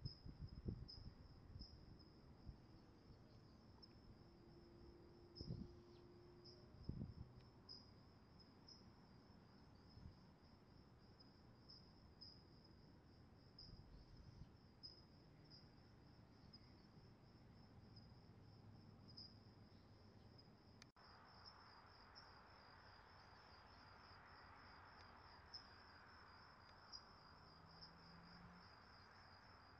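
Faint cricket chirping: a thin, high trill repeating steadily. There are a few low thumps in the first seven seconds, and a soft hiss comes in after about 21 seconds.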